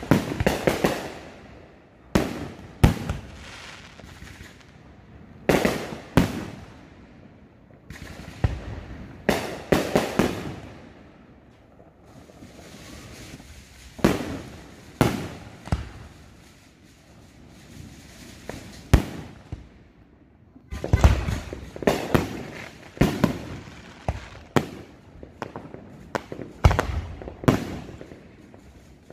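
Aerial firework shells bursting close overhead: sharp booms every second or two, each trailing off. A quicker run of bursts comes in the last third.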